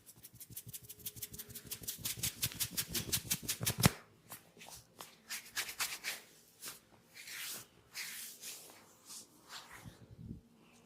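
Rapid rhythmic hand tapping of a head massage, about eight strokes a second, growing louder and ending in one sharp slap about four seconds in. Slower scattered strokes and rubbing on skin and hair follow.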